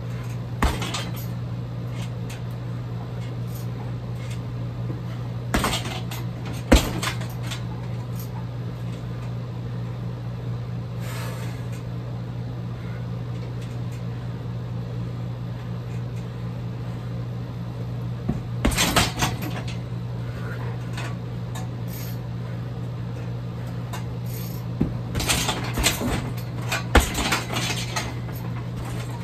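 Kicks landing on a hanging heavy bag with clattering, metallic rattles: single hits early on, then a cluster of hits near the middle and a flurry of several near the end, over a steady low hum.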